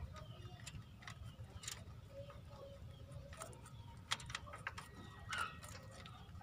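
A rabbit chewing a piece of raw carrot: quick, irregular crunching clicks, over a steady low rumble.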